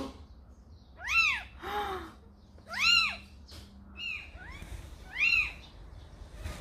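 A very young kitten mewing repeatedly: about six thin, high-pitched cries, each rising and then falling in pitch, roughly a second apart.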